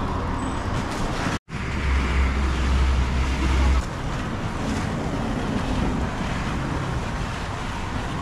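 Street traffic noise with a vehicle engine running. A brief break about a second and a half in is followed by a heavier low rumble for about two seconds.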